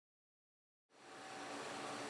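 Silence for the first second, then a steady hum with a few faint held tones fades in: the ambient hum of a machine shop.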